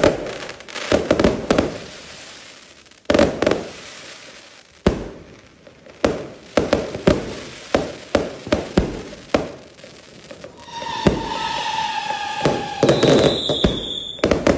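Fireworks and firecrackers going off in a rapid series of sharp bangs and crackling bursts. Partway through, a whistling firework gives a steady, slightly falling whistle for about a second and a half, followed by a shorter, higher whistle.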